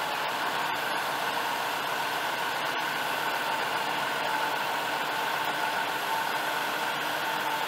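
Turbo-diesel engine of a 2011 Dodge Ram 5500, a 6.7-litre inline six, idling steadily, with a faint whine over an even hiss.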